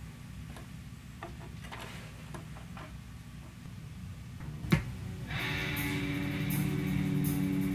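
Vinyl record handled onto a turntable, with a few faint clicks over a low steady hum. Then the stylus drops onto the record with a single sharp click about four and a half seconds in, and guitar music starts playing from the record half a second later.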